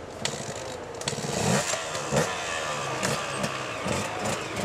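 Enduro dirt bike engines revving as the bikes pull away on a dirt track, the pitch rising and falling with each twist of the throttle. It gets louder from about a second in.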